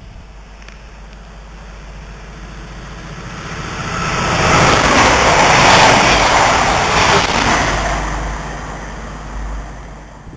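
A passenger train passing through on the main line: a rush of wheel and air noise that swells to a peak about halfway through and dies away as it goes.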